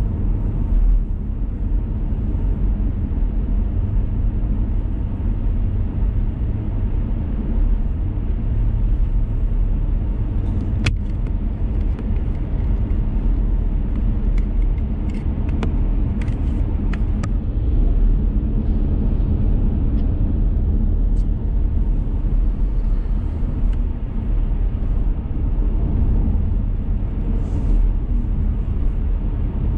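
Steady low rumble of road, tyre and engine noise inside a moving car's cabin at cruising speed, with a few faint clicks now and then.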